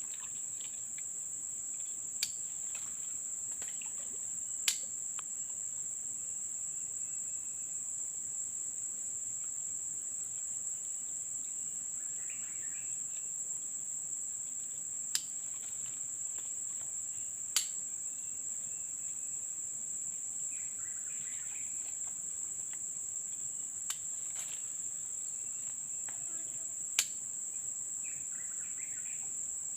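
Swamp insects shrilling in one steady, unbroken high-pitched tone. About six sharp clicks come at irregular moments over it, with a few faint chirps.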